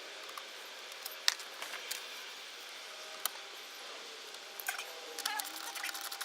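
Hand work on a car's plastic centre console trim: a few sharp isolated clicks, then a quick run of small clicks and rattles with faint squeaks near the end.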